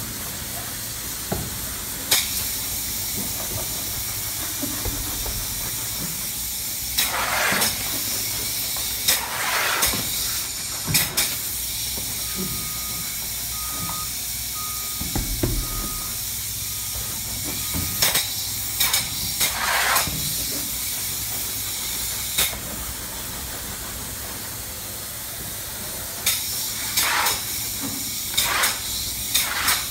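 Spray foam gun spraying open-cell foam in hissing bursts a second or so long, over a constant hiss and low hum. A run of about six short beeps, one a second, comes through the middle.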